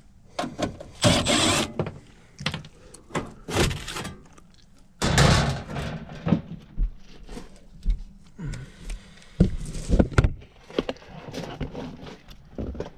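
Irregular knocks, clunks and scrapes of hands-on work, several a second in places, with a few louder hits around the middle.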